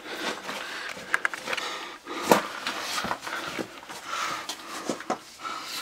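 Scattered knocks, clicks and scrapes of someone moving and handling a camera inside a narrow stone tunnel, with a few sharper knocks standing out over a low rustling.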